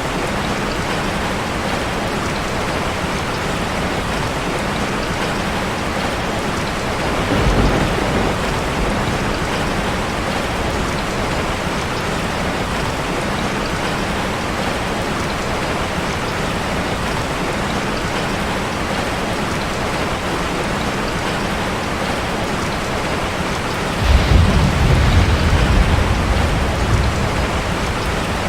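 Steady rain falling on a street, an even hiss. Twice a deep low rumble swells under it: briefly about seven seconds in, then a longer one starting suddenly near the end and fading after a few seconds.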